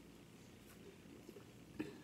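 Near silence: room tone, with one faint click near the end.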